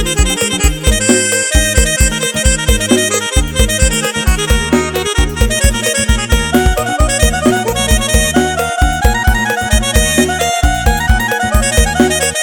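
Electronic keyboard (electone) played live: a reedy, accordion-like melody over chords and a steady, heavy bass beat.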